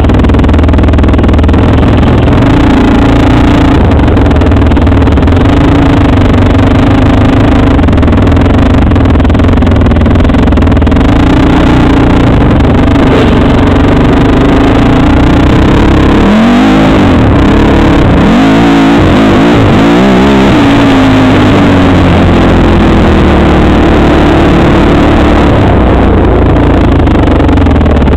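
Suzuki LT-Z400 quad's single-cylinder engine running under way, close enough to overload the helmet camera's microphone into a steady, distorted drone. About halfway through, the engine note rises and falls several times as the throttle is worked.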